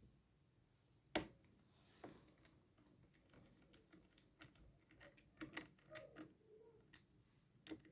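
Faint, scattered clicks and taps of a small screwdriver and hands on the open laptop's battery screws, with one sharper click about a second in.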